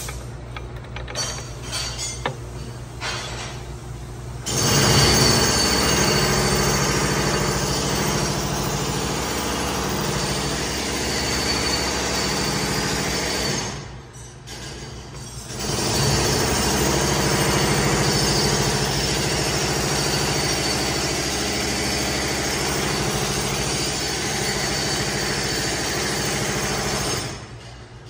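Eaton Fuller FRO-13210C 10-speed twin-countershaft transmission running with its top cover off, its gears meshing in a steady whirring run. A few light clicks come before it starts about four seconds in; it drops away briefly near the middle, runs again, and stops near the end.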